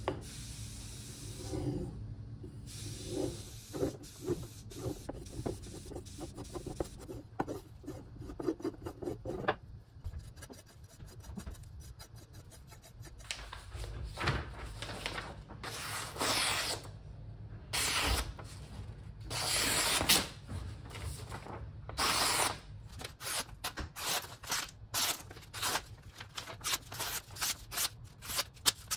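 A kukri blade is rubbed back and forth along a wooden block. From about halfway through it slices through a sheet of paper in a series of quick swishing cuts, more and more rapid towards the end, testing its sharpness.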